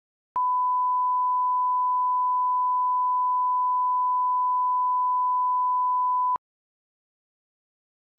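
A 1 kHz line-up test tone: one pure, steady beep held at constant level for about six seconds. It switches on shortly after the start and off near the end, each time with a slight click. It is the standard reference tone that goes with colour bars, used for calibrating audio level.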